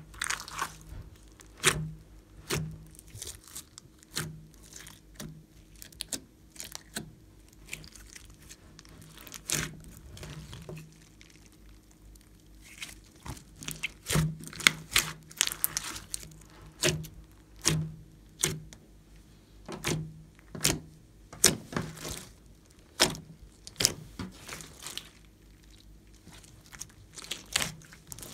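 Hands squeezing, folding and pressing a large mass of glossy slime mixed with floam beads: irregular wet squelches, pops and crackles, coming thicker in the second half.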